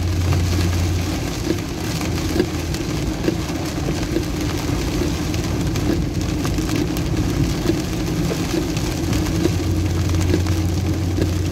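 Heavy rain pelting a moving car's roof and windscreen, heard from inside the cabin, over a steady low hum of engine and tyres on the wet road.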